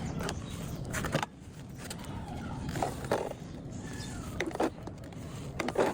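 Dried sand crust crumbling apart, a series of sharp crackles and snaps over a steady low gritty rustle, the loudest snap near the end.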